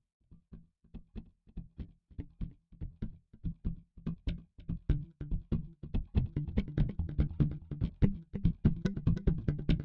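Background music fading in: a steady pulsing beat that grows louder throughout.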